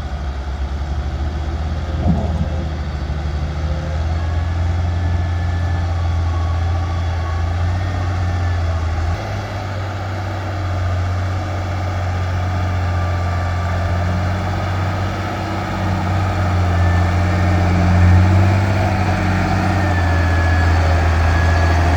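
Heavy diesel engine running, a steady low drone. Its note shifts about nine seconds in and swells briefly near eighteen seconds.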